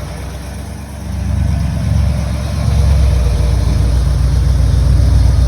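A car engine running nearby with a low, pulsing rumble that grows louder about a second in and holds steady.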